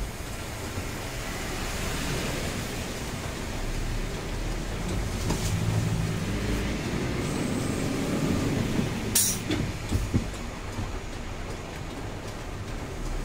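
Cab interior of a Mitsubishi Fuso truck on the move in rain: the diesel engine runs steadily under road and rain noise, swelling a little in the middle. A few sharp knocks come about nine and ten seconds in.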